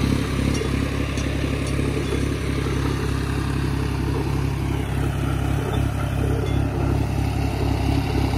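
John Deere 5105 tractor's three-cylinder diesel engine running steadily under load, pulling a mounted disc harrow through the field.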